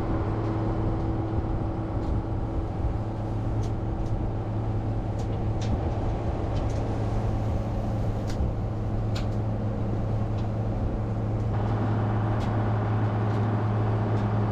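Tractor engine running at a steady speed, driving a vertical feed mixer wagon as hay goes in. Scattered light clicks are heard over the hum, and the mixer noise grows a little louder near the end.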